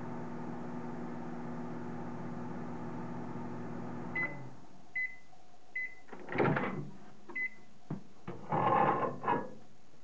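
Microwave oven running with a steady hum that stops about four seconds in, followed by four short beeps of its end-of-cycle signal. Between the beeps the door is opened and a glass dish is taken out, the loudest sounds here.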